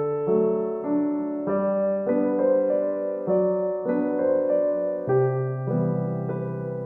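Background music: soft piano chords changing about every half second to a second.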